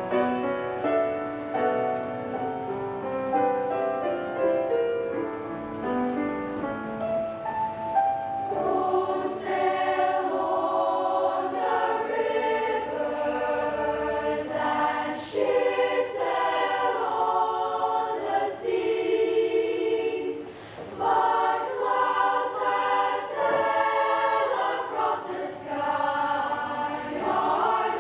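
Junior mixed choir of young voices singing a choral piece in harmony. The singing grows fuller and louder about a third of the way in, with a short breath pause about three-quarters of the way through.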